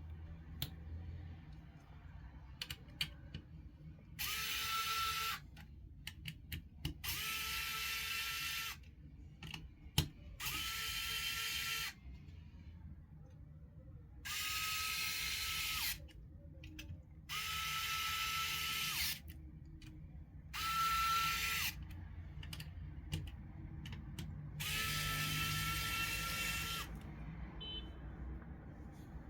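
Small electric screwdriver running in seven short bursts of one to two seconds, each spinning up to a steady whine, with light clicks in between: screws on a graphics card being driven.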